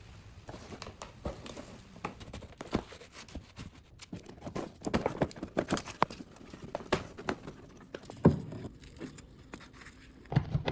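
Irregular light clicks and taps from hands handling a new scooter throttle cable and its fittings, with one sharper knock about eight seconds in.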